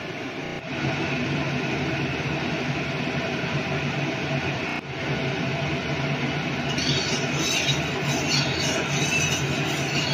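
Steady rushing hum of a running kitchen stove setup. About seven seconds in, a light crackling begins as oil heats in an aluminium kadai.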